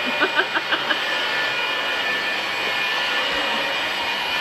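Vacuum cleaner running steadily. It is joined in the first second by a quick run of about five short, high-pitched cries.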